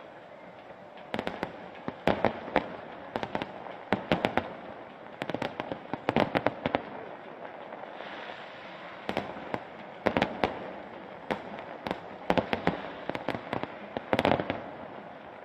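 Fireworks display: clusters of sharp bangs and crackling pops from bursting shells, coming every second or so.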